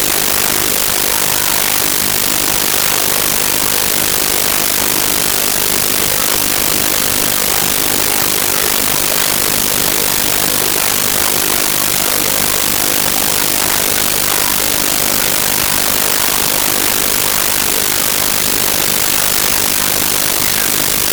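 Loud, unbroken static hiss from a faulty audio recording, steady throughout and harsher toward the treble, with no game sounds coming through.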